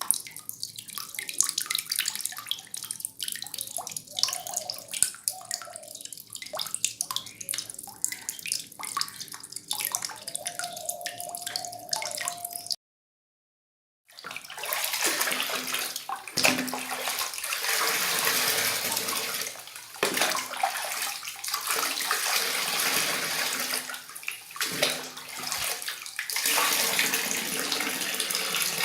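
Tap water running into a bathroom basin, in two takes. First a lighter, uneven stream with frequent splashes. Then, after a short silent gap about 13 seconds in, a fuller, steadier flow.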